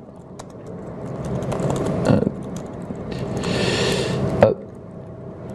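Laptop keyboard being typed on in short clicks, with a rustling swell about two seconds in and a louder breathy hiss about three and a half seconds in that ends in a sharp knock.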